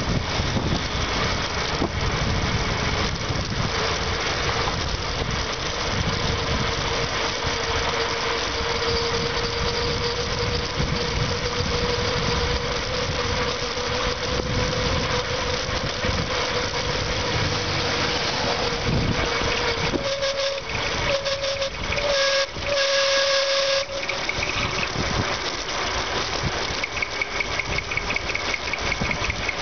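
Heavy wind rush on the microphone of a bicycle descending a mountain road at speed. A steady high whistle runs through the middle, and about two-thirds in the rush drops away for a few seconds under a broken, on-and-off squeal.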